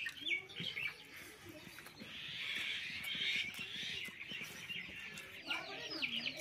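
Small birds chirping: many short, falling calls, with a steady hiss in the same high range for a couple of seconds in the middle. Low clucking from chickens, strongest near the end.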